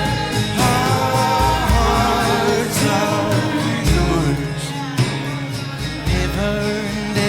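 Live worship music: a band with guitar playing slowly and a voice singing over it.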